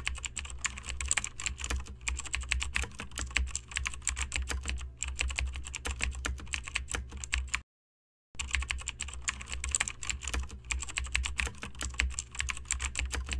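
Keyboard typing sound effect: a fast, continuous run of keystroke clicks over a low hum, stopping dead for under a second a little past halfway, then resuming.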